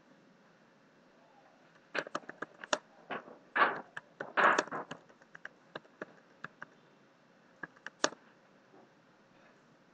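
Computer keyboard typing: irregular runs of keystrokes from about two seconds in until about eight seconds in, with a few louder strokes in the middle.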